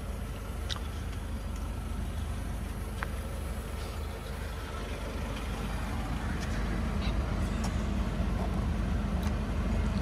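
Steady low rumble, a little stronger in the second half, with a few faint clicks.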